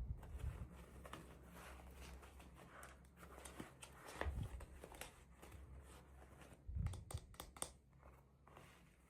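Hands unboxing miniature toys: scattered clicks, light rustles and crinkles of packaging, with three soft low thumps as pieces are set down or handled.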